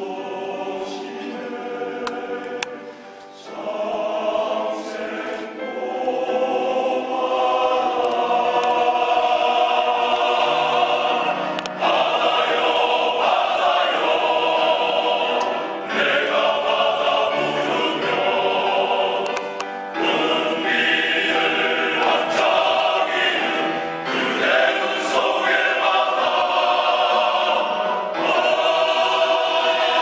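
A large men's choir of about a hundred voices singing in full harmony, quieter for the first few seconds and then swelling louder and staying full.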